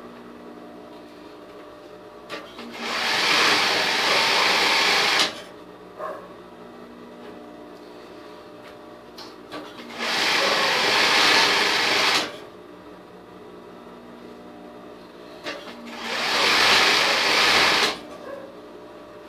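Industrial Singer sewing machine stitching feathers in three bursts of about two seconds each, with a steady hum in between.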